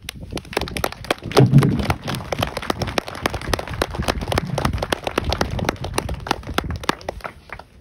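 Audience applauding, a dense patter of claps, loudest about a second and a half in and thinning out near the end.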